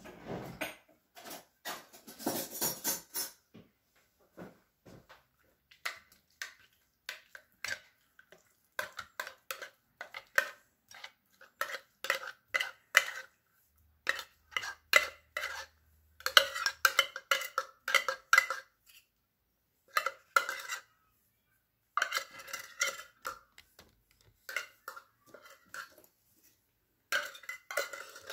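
Opened metal tuna cans clinking, knocking and scraping against a glass bowl as the tuna is emptied out, in irregular runs of short strikes with brief pauses.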